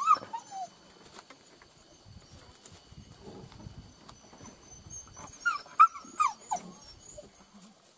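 Hunting dog giving short high-pitched yelps: one at the start, then a quick run of several about five and a half seconds in.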